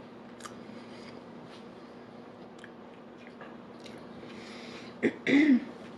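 Close-miked chewing of a sandwich mouthful, with small wet mouth clicks. About five seconds in comes a short voiced hum from the throat.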